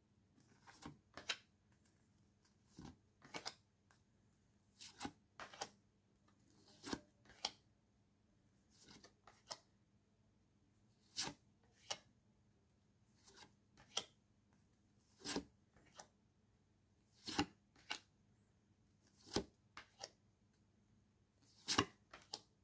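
Paper postcards being handled one by one, slid off a stack and laid on a pile: a series of short paper swishes and taps, often in pairs, about one card every two seconds.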